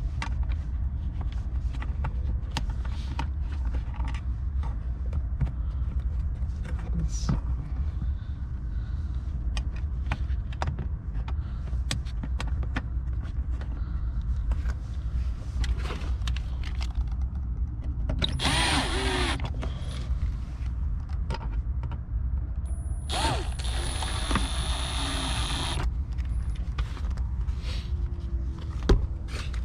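Cordless drill-driver running screws in to mount a car door speaker: two short runs of the motor about two-thirds of the way through, the second a few seconds long. Between them come scattered handling clicks over a steady low hum.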